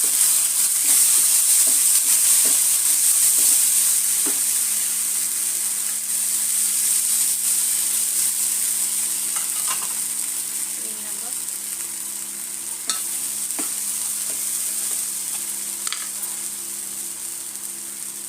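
Coarsely ground moong dal paste sizzling loudly in hot oil with fried onion and cumin as it goes into the pan. It is stirred, with a few sharp scrapes and clicks, and the sizzle slowly dies down as the dal filling starts to roast.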